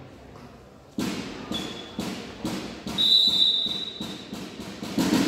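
A volleyball is bounced repeatedly on a sports-hall floor, about two bounces a second, echoing in the large hall. A referee's whistle sounds for about a second, some three seconds in, and a louder hit of the ball comes at the very end.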